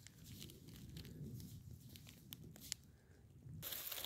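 Near silence with a faint low rumble and two small clicks, then, near the end, a sudden rustle of dry leaf litter as a hand reaches in around a porcino mushroom to pick it.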